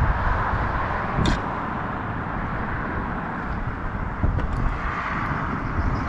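Strong wind buffeting the microphone: a steady low rumble and hiss, with two short knocks, about a second in and about four seconds in.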